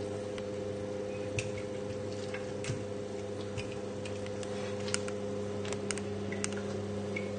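Metal kitchen tongs clicking and clinking against the pot, about half a dozen sharp irregular ticks, as braised lamb shanks are lifted out of the sauce. Under them runs a steady electrical hum.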